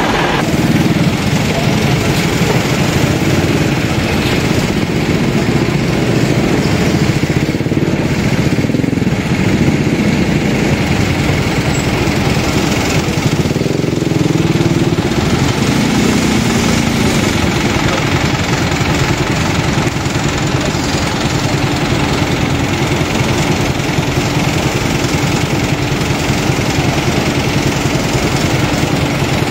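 Heavy diesel engines idling, a loud steady rumble that holds without a break.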